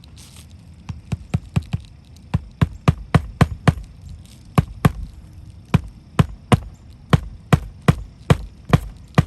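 Hammer driving roofing nails into asphalt shingles: a run of sharp strikes about two to three a second, beginning about a second in, with short pauses between nails.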